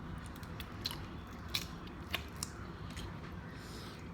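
Seafood being eaten at the microphone: chewing, with several short sharp cracks and clicks of shells being broken apart.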